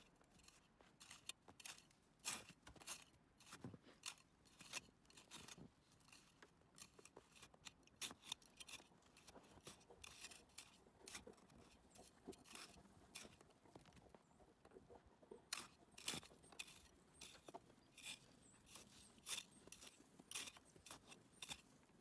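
Plastic snow brush and ice scraper scraping packed snow off a car's windshield: a run of short, irregular scrapes and crunches, about one or two a second.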